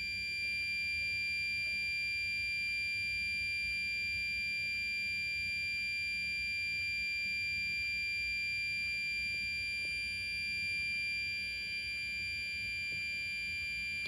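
Gentex Commander 2 fire alarm horn sounding its continuous tone: one steady, unbroken high-pitched electronic tone, with tape over the sounder to keep it down.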